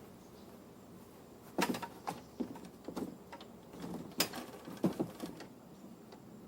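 A run of irregular knocks and clunks, about a dozen, from about a second and a half in to about five seconds in, like wood and gear being handled and moved.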